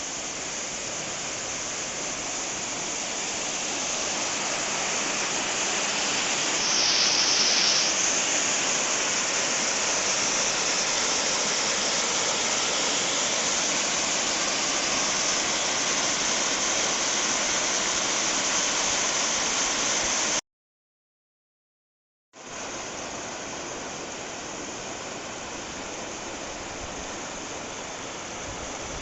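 Rushing water of a mountain stream and waterfall, a steady rush that grows louder over the first several seconds. Past the middle it cuts out completely for about two seconds, then resumes somewhat quieter.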